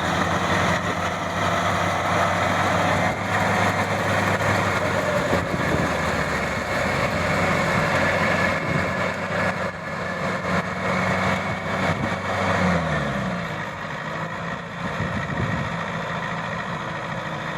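Maxxi 85 combine harvester's diesel engine running steadily, then winding down in pitch about thirteen seconds in as it slows, leaving a quieter mechanical rumble.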